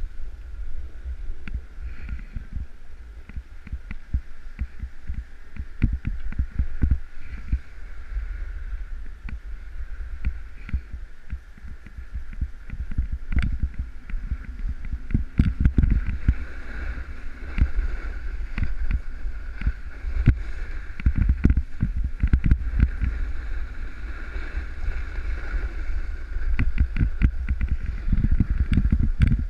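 Snowboard sliding over snow, a steady rumble broken by frequent bumps and jolts, with wind buffeting on a body-worn camera.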